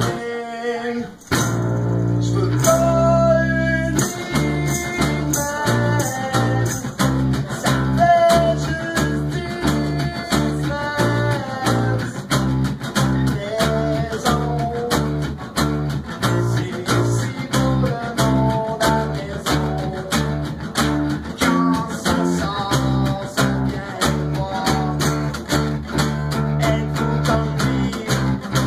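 Two acoustic guitars strummed in a steady rhythm while a man sings in French, played live. The music breaks off briefly about a second in, then picks up again.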